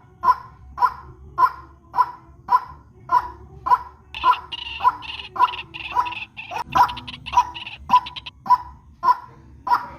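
White-breasted waterhen (ruak-ruak) calls, a short call repeated evenly about twice a second, as used in a bird-lure recording. From about four seconds in, a higher, faster chattering call overlaps for some four seconds before the steady calls carry on alone.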